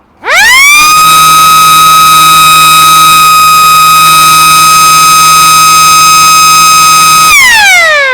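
Small siren winding up within about a second to a steady, high wail, holding it, then winding down in a falling glide near the end.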